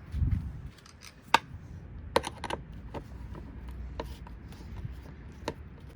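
Hands working on the plastic parts of a vacuum cleaner during disassembly: a low thump at the start, then about half a dozen scattered sharp clicks and taps of plastic, the loudest about a second and a half in.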